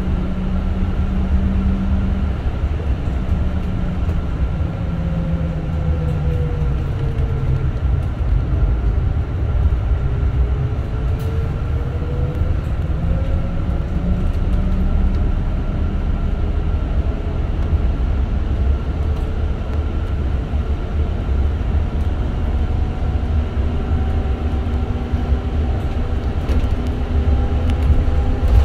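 Inside a moving VDL Citea SLF 120 Electric city bus: steady low road rumble with the electric drive's whine, its pitch sliding down and back up with the bus's speed, then climbing steadily near the end as the bus accelerates.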